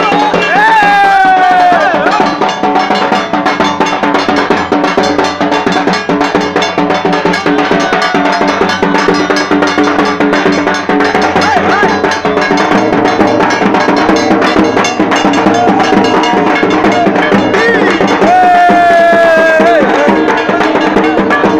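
Loud dance music with a steady, driving drum beat and a gliding melody line over it, cutting off abruptly at the end.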